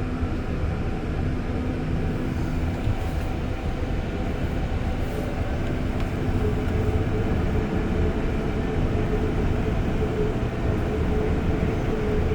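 Steady running noise heard from inside an REM light-metro car moving along the track: a low rumble with a faint steady tone, and a clearer steady tone that comes in about halfway through.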